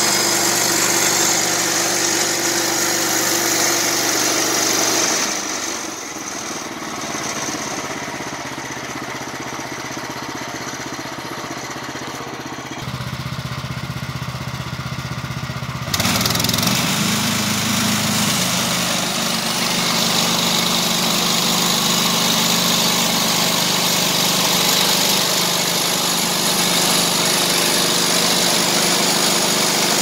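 Portable band sawmill's small gasoline engine running. It drops back about five seconds in, then jumps back to full speed about sixteen seconds in, its pitch rising as it revs up.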